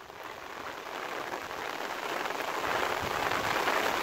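Steady patter of rain, swelling up over the first couple of seconds.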